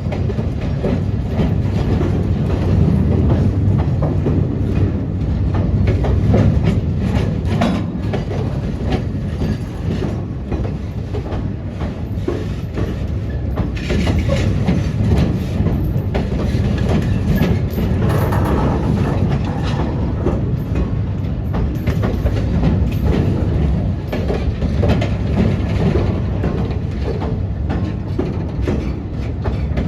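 A diesel train with many locomotive units running past, a steady low engine rumble with many short clicks from the wheels.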